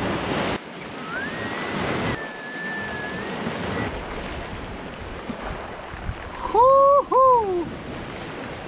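Surf washing on a rocky shore with wind buffeting the microphone. A thin whistle-like tone rises and holds about a second in, and near the end two loud arching notes sound in quick succession.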